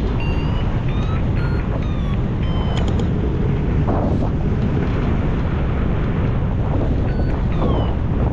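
Steady wind buffeting the microphone in flight under a hang glider, with short electronic beeps from the variometer now and then, stepping in pitch.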